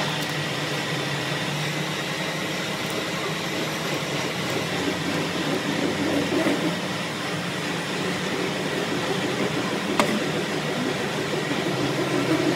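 A steady machine hum with a faint high tone held over it, and one sharp click about ten seconds in.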